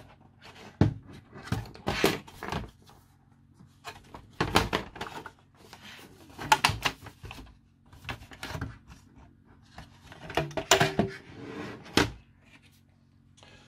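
Sheet-metal cover of a Sony BDP-S185 Blu-ray player being worked loose and slid off its chassis: an irregular run of metallic knocks, clunks and short scrapes.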